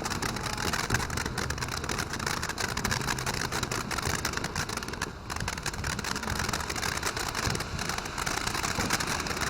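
A ground firework fountain burning: a steady spray of hissing and fine crackling, with a brief lull about five seconds in.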